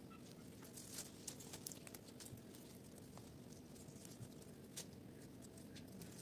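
Near silence, broken by faint scattered clicks and rustles of gloved hands fastening a bougainvillea vine to a coir-wrapped pole with garden wire: a few clicks about a second in and one more near the end.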